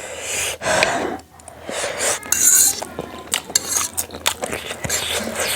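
Close-miked eating at a meal: cutlery clinking and scraping against a dish, with noisy bursts of eating sounds in between.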